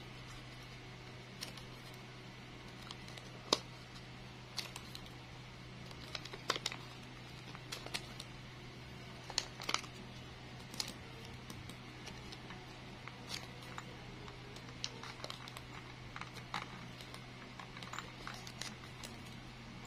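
Thin plastic bag crinkling in quiet, irregular little clicks and crackles as fingers pinch and fold a plastic leaf, over a faint steady hum.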